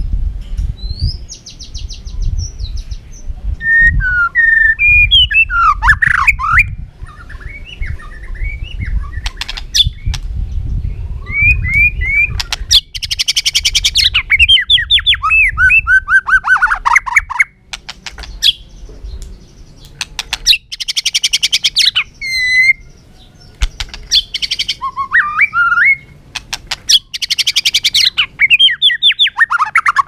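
White-rumped shama singing a long, varied song: clear whistled phrases gliding up and down, broken by several runs of rapid, fast-repeated notes, over a low rumble.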